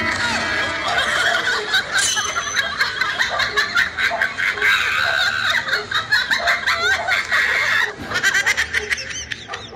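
High-pitched laughter, several voices overlapping, going on throughout and breaking into choppier bursts about eight seconds in.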